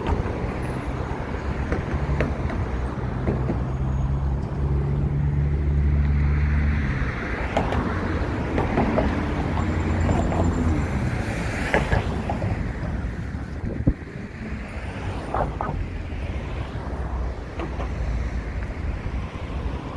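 Road traffic passing close on a busy city bridge: a steady rumble of tyres and engines, with a heavy vehicle's low engine drone for the first several seconds and a passing vehicle's whoosh swelling around twelve seconds in.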